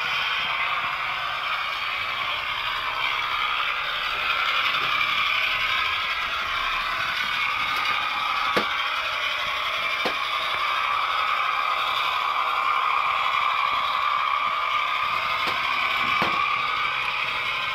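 Model Class 121 diesel railcar's sound chip playing a diesel engine note through a small speaker, mixed with the model's motor and gear whirr. The engine note dips slightly in pitch and then rises again, with a few sharp clicks from the wheels over the track.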